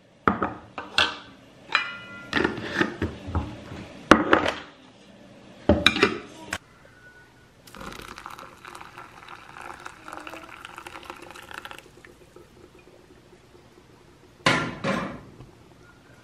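Plastic scoop knocking and scraping in a glass jar of ground coffee, a quick run of clinks and clatters, then hot water poured in a thin stream onto the grounds in a paper coffee filter for about four seconds. One more short clatter comes near the end.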